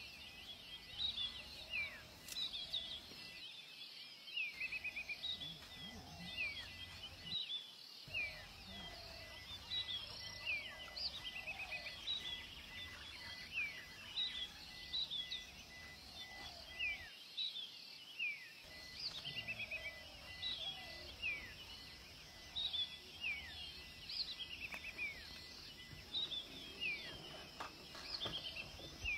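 Wild birds chirping and calling in quick, repeated short notes, over a steady low background noise.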